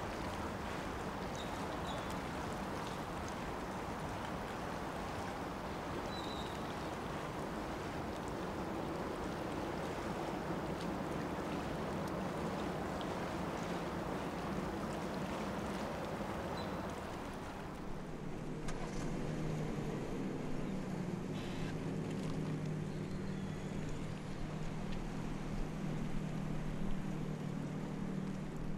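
Waterfront ambience: a steady rushing noise of water and wind. About 18 seconds in it changes to a quieter low, steady hum with a motor-like drone.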